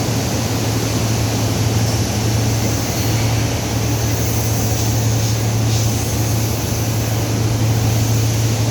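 Steel pipe mill machinery running steadily: a constant low electrical hum under a broad, even machine noise, with no breaks or impacts.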